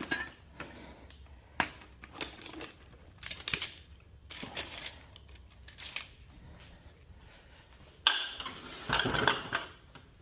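Metal tools and hardware clinking and clanking as they are handled, a string of separate knocks and rattles with a longer clatter near the end.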